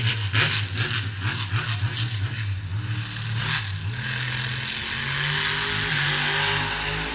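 Race car engine running, heard from inside the stripped-out car: a lumpy, pulsing note for the first few seconds, then revving up to a steadier, higher note from about four seconds in.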